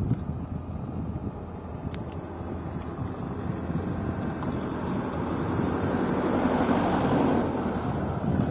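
A passing engine, rising to its loudest about seven seconds in and then fading, over a steady low rumble.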